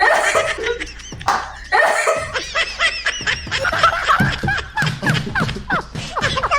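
People laughing in quick repeated bursts.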